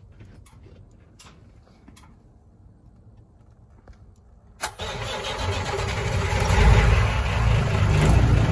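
Freightliner FLD 120 semi truck's diesel engine started from the dash push button: a few faint clicks, then about four and a half seconds in the engine cranks, fires and runs, getting louder over the next couple of seconds. It is being started to build air pressure in the truck's air system.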